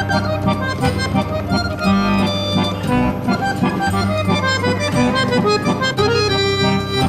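Instrumental background music with a steady beat and sustained chords.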